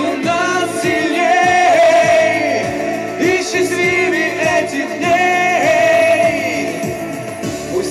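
A Russian pop song with singing.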